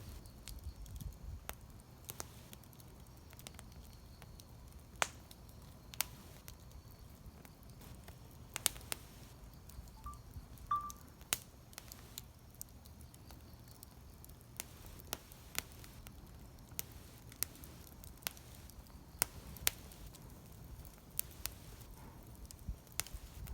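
Wood campfire crackling, with sharp, irregular pops and snaps over a low steady rumble.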